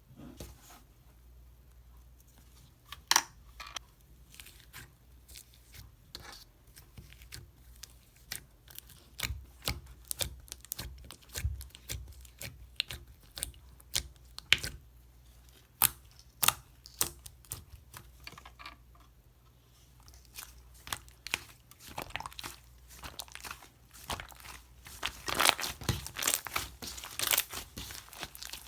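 Slime being pressed, poked and stretched by hand, giving a run of crackling clicks and pops. They are scattered at first and come thick and loud in the last few seconds.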